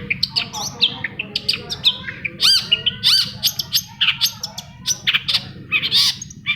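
Long-tailed shrike (cendet) singing a fast, varied run of short chirps and arched whistled slurs, with a few harsher, rasping notes near the end.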